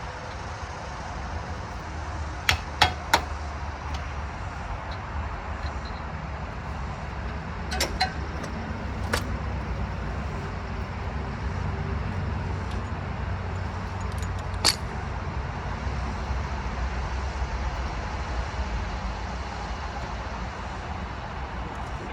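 Sharp metallic knocks and clinks of tools during a CV axle removal: three in quick succession a couple of seconds in, a few more about halfway, and one last one later, over a steady low rumble.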